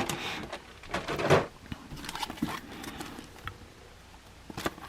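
Toy packaging being handled: intermittent rustling with light clicks and taps, the loudest rustle about a second in.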